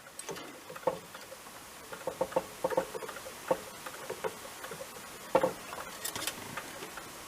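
Irregular light clicks and taps of small tools working on a circuit board while a wire is being soldered in place, with the loudest tap about five seconds in.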